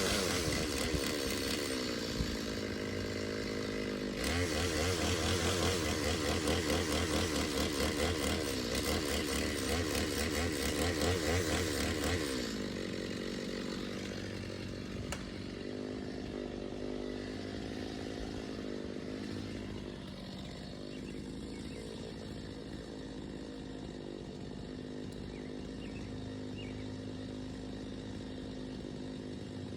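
Two-stroke gas chainsaw running at high revs with a wavering pitch, then dropping back to idle about twelve seconds in and idling steadily.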